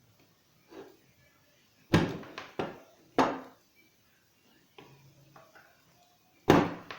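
Sharp knocks of hard objects. Three loud ones come close together about two seconds in and another comes near the end, with fainter taps between them.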